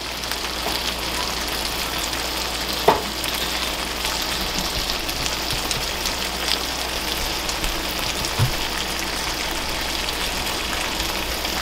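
Crab curry sizzling steadily in a stainless steel frying pan, the gravy cooked down until the oil floats on top and fries. There is a single sharp knock about three seconds in.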